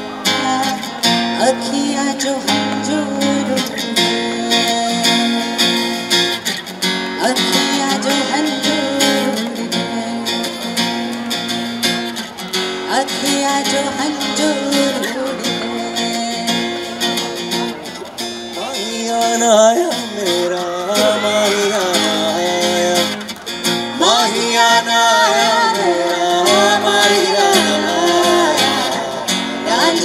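A woman singing into a microphone to a strummed acoustic guitar, the sung melody coming through more clearly in the second half.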